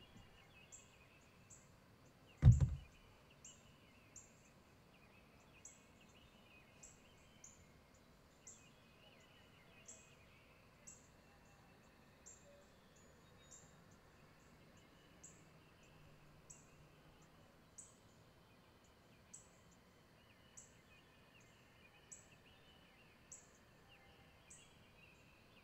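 Quiet outdoor ambience. A short, high chirp repeats roughly once a second, with faint chirping calls lower down. A single loud thump comes about two and a half seconds in.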